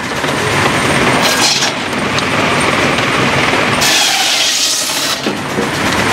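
Machinery running with a steady low rumble and repeated bursts of hissing, the longest about four seconds in.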